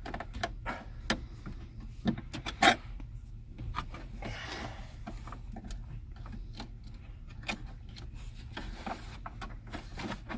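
Scattered clicks and knocks of hand work on a pickup truck's dashboard, with one sharper knock a few seconds in and a brief scrape soon after.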